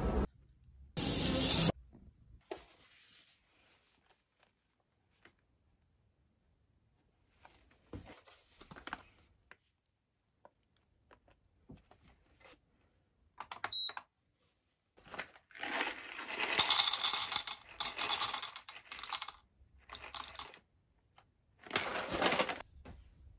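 Whole coffee beans poured from a plastic bag into a plastic cup on a digital kitchen scale: a few seconds of rattling beans with the bag crinkling. Just before, the scale gives a short beep as it is switched on. There are light handling clicks around it, and a brief burst of noise about a second in.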